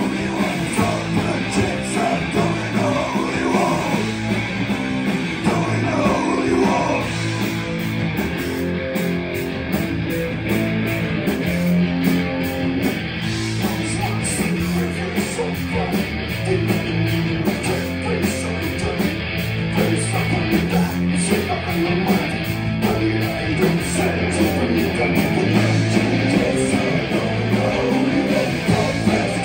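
Live rock band playing loud and steady: amplified electric guitars and bass over drums keeping a steady cymbal beat, with a singer at the microphone.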